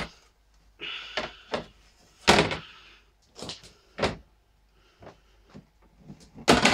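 A cat pawing at the small plastic hatch cover in an aquarium lid, lifting it and letting it fall back: a run of separate plastic clacks and short scrapes, the loudest near the end.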